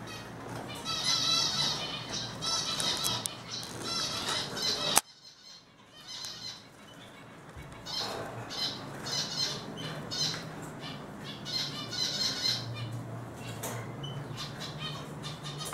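Eurasian siskins twittering and singing in a cage: fast, repeated high warbling phrases. The song breaks off suddenly about five seconds in and picks up again a couple of seconds later.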